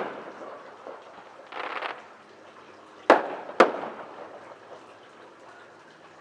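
Fireworks going off: a short rushing burst about a second and a half in, then two sharp bangs about half a second apart, each trailing off in an echo.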